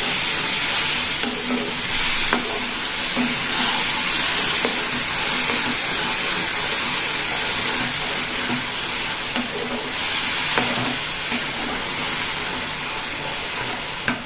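Potatoes in mustard and green-chilli paste sizzling steadily in hot oil while a silicone spatula stirs them round the pan, the masala being fried down (kosha).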